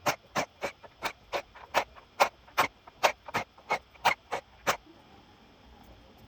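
About fourteen sharp taps in a quick, slightly uneven series, roughly three a second, stopping near five seconds in.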